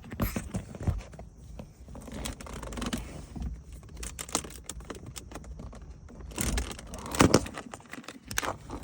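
Plastic dashboard trim of a 2016 Mazda CX-9 being worked loose and pulled up by hand: a run of plastic clicks, creaks and rubbing, with two louder knocks about two-thirds of the way through.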